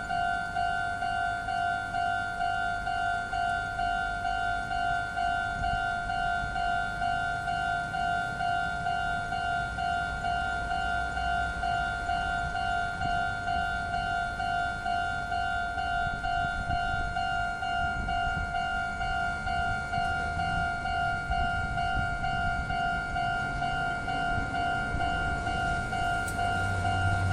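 Japanese railway level-crossing alarm sounding its electronic bell tone in a steady, evenly repeating rhythm, with a low rumble underneath.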